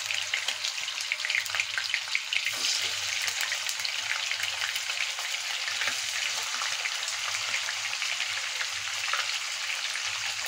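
Paneer pieces frying in hot mustard oil: a steady sizzle with fine crackling.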